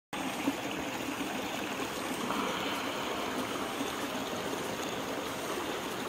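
Mountain stream rushing over and between boulders, a steady flow of water.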